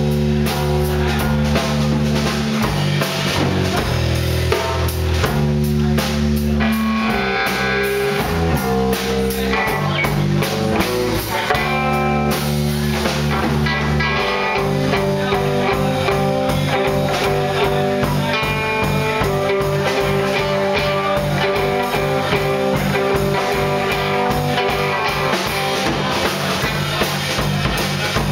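Live rock band playing: two electric guitars and a drum kit, with heavy held low chords that settle into a steadier repeating pattern about halfway through.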